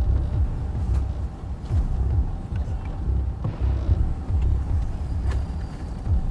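Tow truck's engine running, a steady low drone with uneven pulsing.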